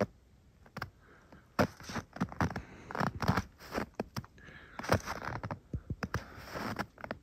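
Irregular short scrapes, crackles and clicks, scattered unevenly and varying in loudness.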